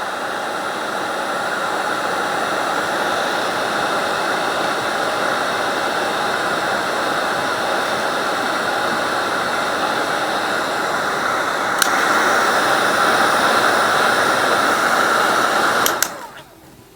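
Heat gun running steadily on low, blowing hot air over plastic. About three-quarters of the way through there is a click and it runs a little louder; near the end it clicks off and the noise stops suddenly.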